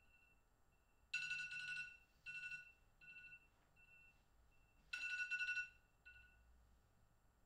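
Smartphone alarm tone beeping at two steady pitches: a loud run of beeps about a second in and again about five seconds in, each trailed by fainter, shorter repeats.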